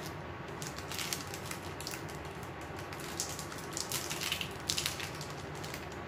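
Bubble wrap and a plastic sleeve crinkling in several short bursts as they are handled, the busiest stretch about halfway through. Under it runs the steady noise of an electric fan.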